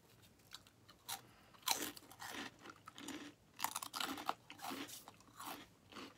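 Crunching and chewing on crisp, puffed shrimp-flavoured chip sticks, in a run of irregular crunches.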